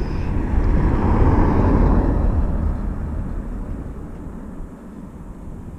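A car driving past on the street, loudest about a second or two in, then fading away.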